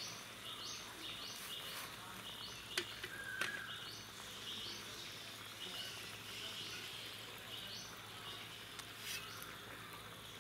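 Short high chirping calls, each stepping up in pitch, repeating about once or twice a second. A couple of light clicks come about three seconds in.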